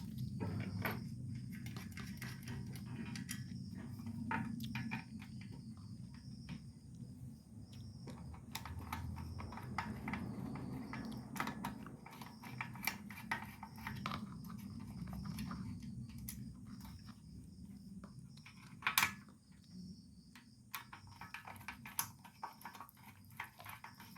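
Scattered small metallic clicks, taps and handling noises as ceiling fan blades are bolted onto the fan's motor housing with nuts. A sharper knock comes about 19 seconds in, and a faint steady high tone runs underneath.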